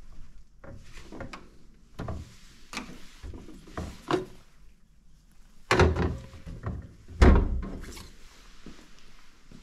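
Small bar fridge being handled: a series of light knocks and clinks as the cans and bottles in its door are moved, then two heavier thuds about six and seven seconds in as the fridge door is shut.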